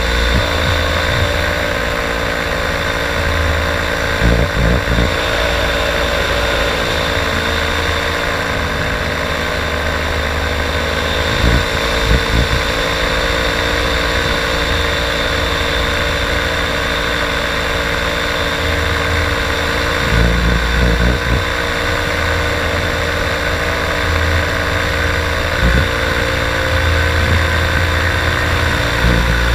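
Paramotor engine and propeller running at a steady, even pitch in flight, with wind buffeting the microphone in a few low gusts.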